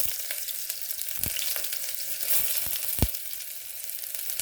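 Chopped onions sizzling and crackling in hot cooking oil just after going into the pan, with a few sharp knocks, the loudest about three seconds in.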